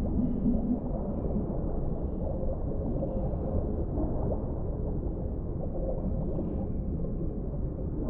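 Deep-sea underwater ambience: a steady, muffled low rumble of water with faint short tonal sounds coming and going.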